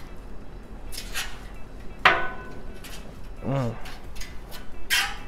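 A metal spatula scraping and clanking on the steel top of a Blackstone flat-top griddle while mixing chorizo. There are a few sharp clanks, and the loudest, about two seconds in, rings briefly.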